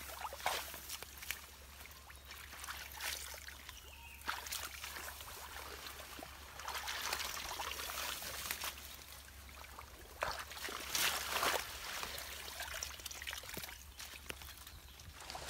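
Shallow muddy water splashing and trickling in short, irregular bursts as bare feet wade through it and a woven bamboo basket is pushed down through water hyacinth, with leaves rustling.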